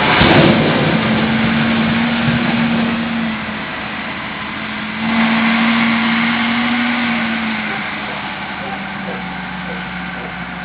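Volvo BM L90 wheel loader's diesel engine running hard, with a steady whine that swells twice, about a second in and again around five seconds, then eases off.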